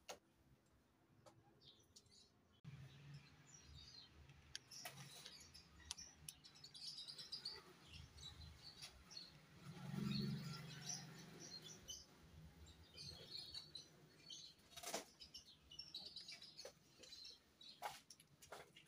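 Near silence with faint, scattered bird chirps and a few light clicks of a screwdriver working the small screws of a brake-fluid reservoir cap.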